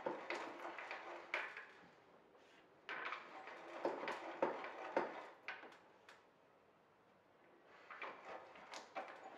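Auger bit in a hand brace boring into wood: scraping, crackling cuts as the brace is cranked, in three spells with short pauses between them.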